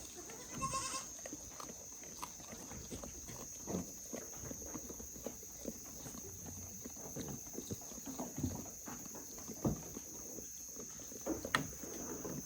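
Goats moving about at close range: scattered soft knocks and rustles of hooves and bodies, with a short high-pitched call about a second in.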